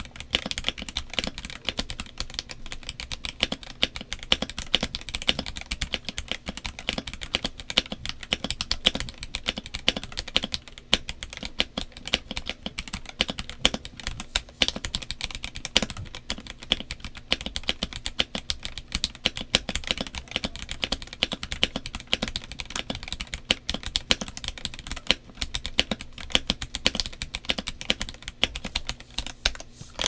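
Fast, continuous typing on a Royal Kludge M75 gasket-mount keyboard with stock, unlubed RK Red linear switches in a polycarbonate plate and doubleshot Cherry-profile keycaps: a dense stream of keystroke clacks. The switches are quite pingy, though the ping is held back somewhat, which the owner puts down to the PC plate, leaving the sound a little muted.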